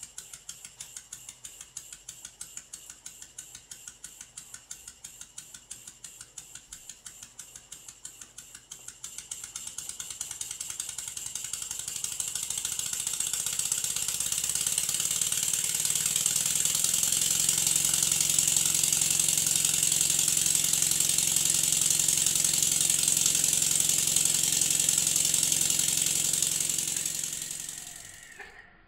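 Stuart S50 model steam engine running on compressed air: at first distinct exhaust beats, about four or five a second, then from about nine seconds in it speeds up until the beats merge into a loud, continuous hiss of exhausting air, which dies away near the end.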